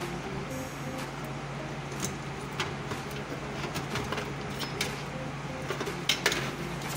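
Scattered light clicks and taps of hands handling power-supply cables and plastic connectors inside a desktop computer case, the loudest pair near the end, over a steady low hum.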